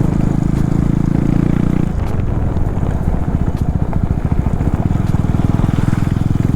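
KTM Duke 390 single-cylinder engine running with the exhaust silencer removed, giving its loud raw, unmuffled sound. It runs higher and smoother for about two seconds, then drops to a lumpy idle with separate firing pulses.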